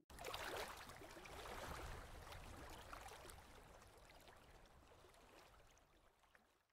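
Near silence: a faint rushing hiss, loudest at the start, fading away over the next few seconds.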